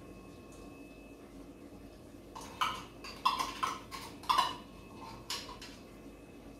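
A spoon scraping and clinking inside a small tin of tomato paste. It starts as a quick run of scrapes and knocks about two seconds in, with one more a second later.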